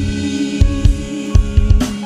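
Live worship band music with no singing: a drum kit plays kick and snare hits, with a cymbal crash near the end, over held chords.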